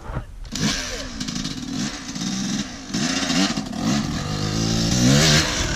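Dirt bike engine revving up and down with the throttle as the bike rides closer, the revs climbing and loudest near the end.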